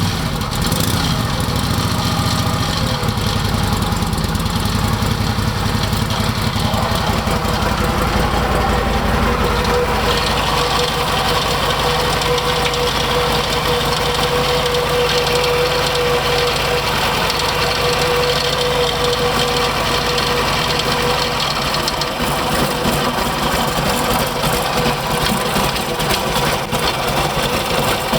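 Harley-Davidson Knucklehead V-twin engine running steadily with a rapid, even beat, carrying an abnormal noise whose cause the owner has not found. A steady whine-like tone comes in about a third of the way through and fades out about three quarters of the way through.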